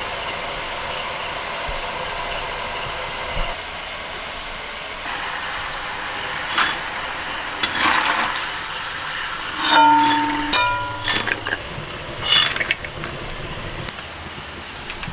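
Hot oil sizzling steadily in a wok as sticks of kurkure dough deep-fry. Partway through come a few knocks and a short metallic ring from a utensil.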